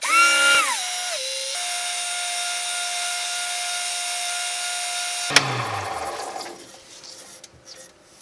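Variable-speed mini wood lathe motor whining as it starts; its pitch falls as the speed is turned down for sanding to about 2000 RPM, then holds steady. About five seconds in there is a sharp click, and the whine drops away to a quiet hiss.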